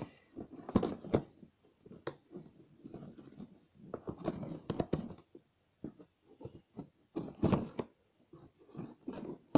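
Cardboard shipping box being pulled and torn open by hand: irregular scrapes, rips and knocks of cardboard and tape, loudest about seven and a half seconds in.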